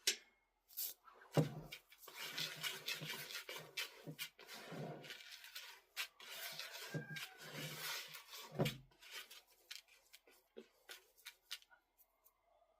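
Handfuls of seed being scooped and dropped into a feed bucket: gritty rustling of grain in two longer spells, with scattered clicks and knocks.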